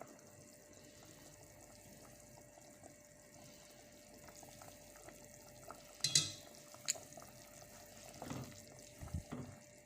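Quiet kitchen handling noises over a faint steady hum: a sharp clink about six seconds in, a short click a moment later, and a few soft knocks near the end.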